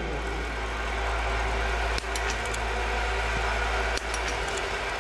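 Small-bore .22 biathlon rifle fired in the standing position: two sharp cracks about two seconds apart, with fainter shot clicks near them, over a steady background din from the range.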